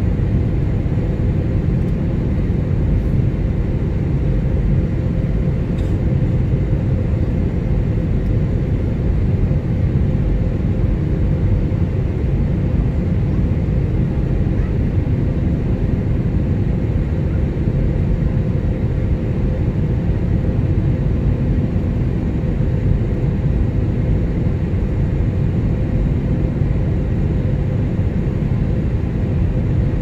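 Steady rumble of a jet airliner's cabin in flight on approach, engine and airflow noise heard from inside, with a faint steady hum running through it.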